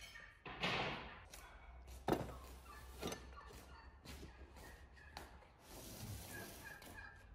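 A wooden cutting board loaded with glass spice jars and bowls is set down on a table and its things are moved about: a sharp knock about two seconds in, another about a second later, and smaller clinks and rustles of handling.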